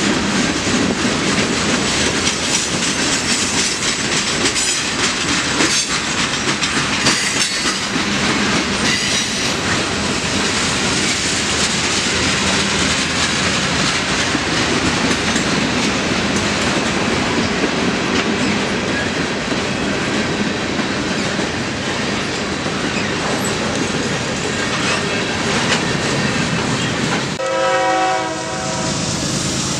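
Freight cars rolling past at track speed, wheels clattering steadily over the rail joints. Near the end the rolling noise breaks off and a train horn sounds briefly.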